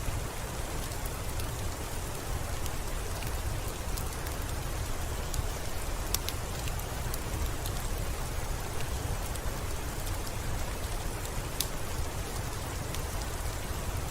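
Steady rain falling, with a deep low rumble under it and a few sharp ticks of single drops or crackles, the clearest about six and eleven and a half seconds in.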